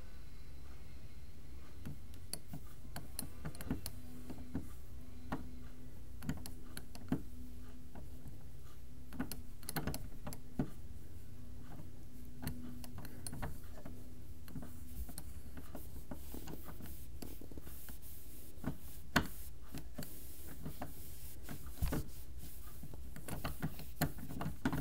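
Brass doorknob being fumbled and jiggled, giving scattered light clicks and knocks at irregular intervals over a steady low hum.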